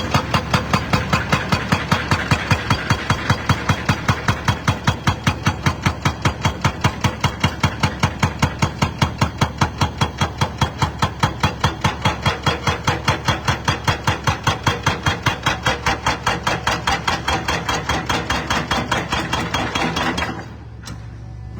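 Excavator-mounted hydraulic breaker hammering concrete in rapid, even blows, about five a second, over the steady hum of the machine's diesel engine; the hammering stops near the end.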